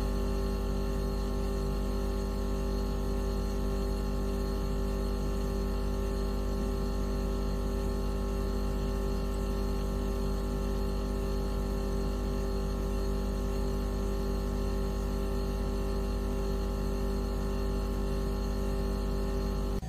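Synthesized anti-mosquito repellent tone: a steady electronic hum with several pitches held together, a low drone under a clear mid-pitched tone, unchanging throughout.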